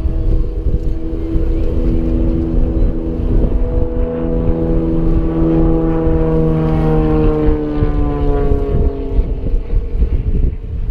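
An engine passing by: several steady tones that slide down in pitch as it goes past, over heavy wind buffeting the microphone.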